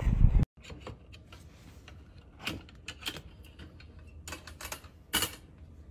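A brief loud rush of outdoor noise cuts off abruptly about half a second in. It is followed by a few scattered light clicks and taps as kittens step about in a plastic pet carrier.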